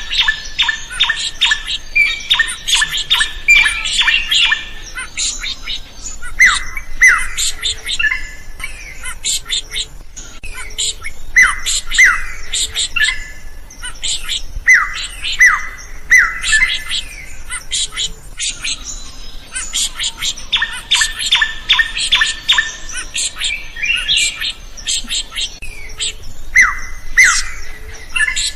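Drongo singing loudly: rapid runs of sharp, chattering notes alternate with pairs of ringing downslurred whistles, the phrase pattern repeating.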